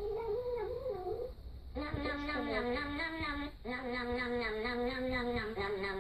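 A kitten mewling with a high, wavering cry. About two seconds in it gives way to music with a held, sung melody.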